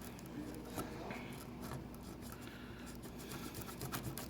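Faint scratchy rubbing and small ticks of old adhesive being scrubbed off the iPad mini's frame.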